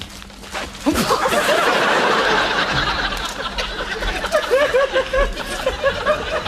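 People breaking into laughter mid-take, starting suddenly about a second in and going on as a quick run of high ha-ha sounds.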